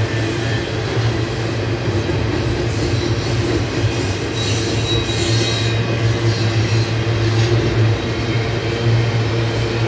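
Double-stack container train's well cars rolling past: steel wheels on rail with a steady rumble, and a brief high wheel squeal about halfway through.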